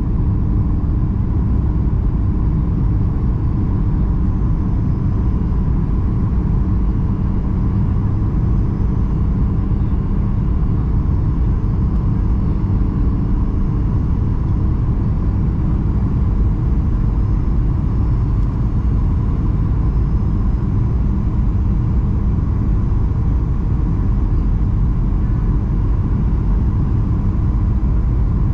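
Steady cabin rumble of a Boeing 737-800 in flight on descent toward landing: its CFM56 engines and the airflow make a constant low roar, with a faint steady whine above it.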